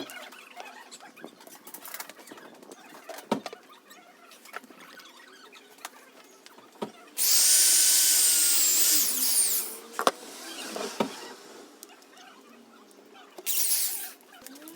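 Handheld power tool, drill-like, running with a whine for about two and a half seconds mid-way, then a shorter burst near the end. Scattered sharp knocks come between the runs.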